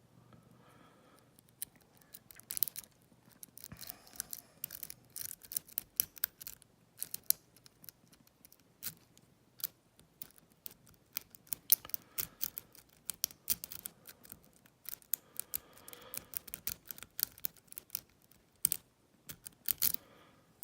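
Lock pick and tension wrench working the standard pins of an old American Lockwood pin-tumbler cylinder. Small metallic clicks and scrapes come irregularly and thick from about two seconds in, as the pins are picked one at a time.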